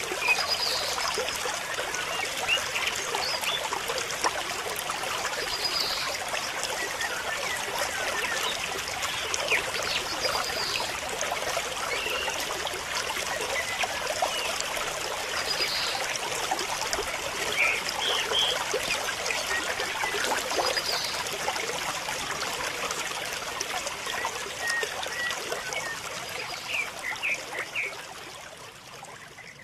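Steady trickling, running-water hiss, with scattered small chirps and a short high call that comes back about every five seconds; it fades near the end.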